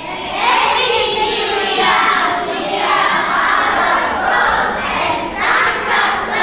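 A group of children singing together, many voices at once and loud, starting just after the start.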